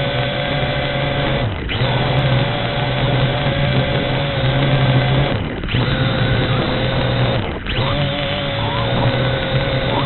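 V686G quadcopter's motors and propellers whirring steadily in flight, a constant hum with a steady whine over it. The sound dips briefly three times, about one and a half, five and a half and seven and a half seconds in, and picks straight back up each time.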